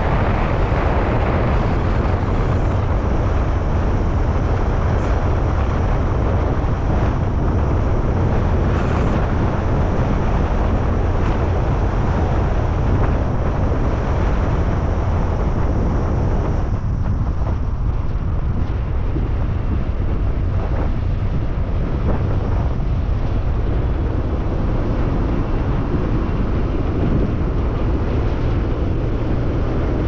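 A vehicle running steadily, a continuous low rumble of engine and road noise.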